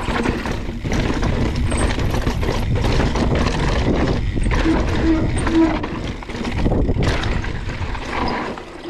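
Wind rumbling heavily on the microphone, with irregular knocks and rattles from an e-mountain bike on rocky ground.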